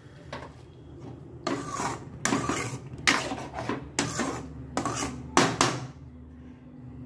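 Steel ladle stirring thick paneer gravy in a metal kadhai, scraping and knocking against the pan in a dozen or so irregular strokes that stop about six seconds in.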